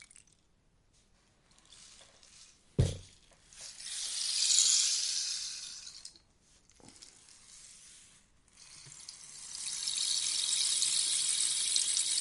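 Rainstick being turned, its beads trickling down inside in two swelling cascades of soft rain-like patter. The first cascade rises and fades and the second swells near the end. A sharp knock about three seconds in is the loudest sound, and a fainter knock comes near seven seconds.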